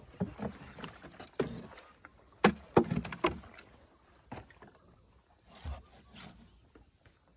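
A string of sharp knocks and bumps from a small wooden boat being handled as a plastic bottle fish trap is held over the side and let go, the loudest two close together about two and a half seconds in.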